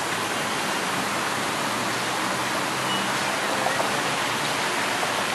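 A steady rushing noise, even and unbroken, with a few faint short chirps over it.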